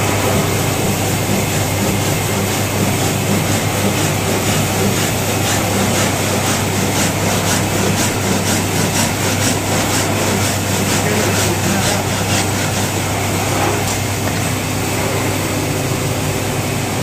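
Handsaw cutting a wooden block, rasping strokes at about two a second through the middle stretch, over a steady low mechanical hum.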